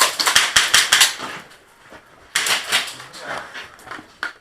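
Rapid bursts of airsoft gunfire: a fast string of sharp clicks for about a second, then a second burst after a pause of about a second.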